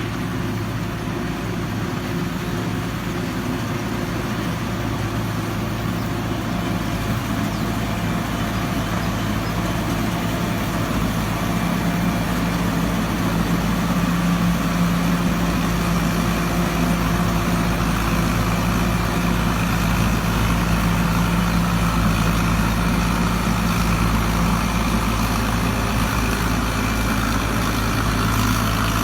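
Combine harvester's diesel engine and machinery running steadily under load, getting a little louder about halfway through.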